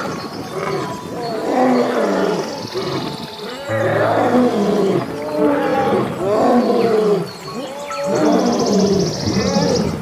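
A large wild animal calling over and over in short, rising-and-falling roars, about once a second, over background music. A high buzz comes in twice.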